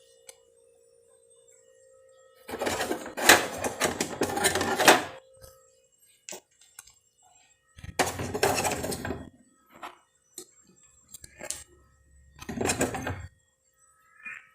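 Household items and containers being handled and clattered while a refrigerator is emptied, in three noisy bursts with scattered clicks and knocks between them.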